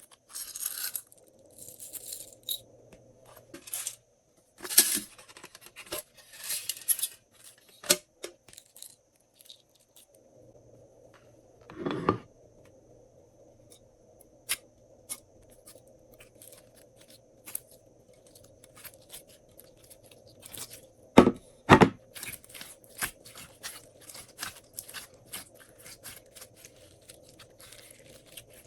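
Glossy slime being mixed and worked, giving irregular sticky clicks, pops and short squelches, with a few louder bursts about a third of the way in and again past two thirds.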